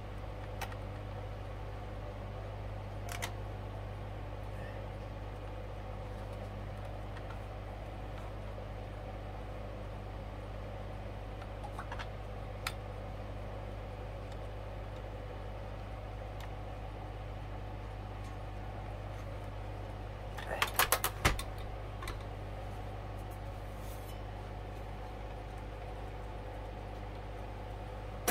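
Sony record player running with a steady motor and electrical hum. A few single clicks, and a quick run of clicks about twenty seconds in, come from the turntable mechanism, which sticks and jams at times.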